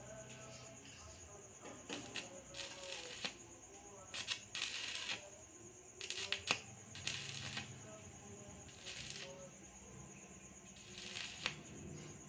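Stick-welding arc from an RD 260 rod at 80 amps crackling and hissing in about five short bursts as tack welds are struck one after another, the strongest about six seconds in.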